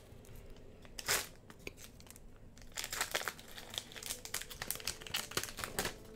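Foil trading card pack wrapper crinkling and tearing in the hands as the pack is opened, in a run of irregular sharp rustles, the loudest about a second in.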